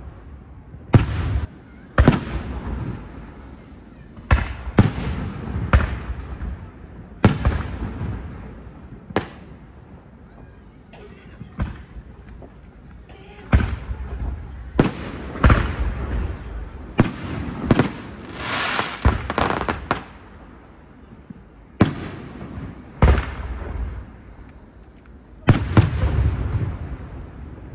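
Fireworks display: aerial shells bursting one after another at irregular intervals, each a sharp bang with a rolling echo. A stretch of crackle comes about two-thirds of the way through.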